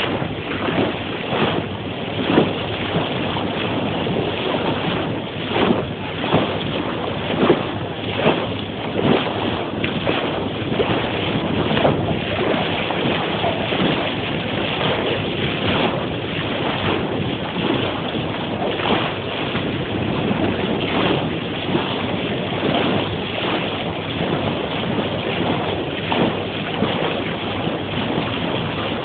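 Wind buffeting the microphone over the rush of water past the bow of a moving boat, a steady noise with frequent irregular gusts.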